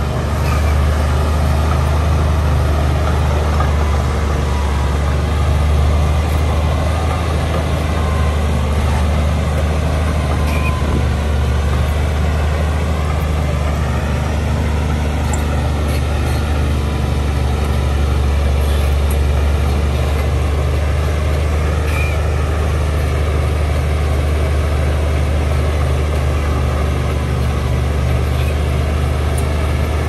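LiuGong B160C crawler bulldozer's diesel engine running steadily under load as it pushes dirt, a deep steady hum with a fainter higher tone that wavers slowly in pitch.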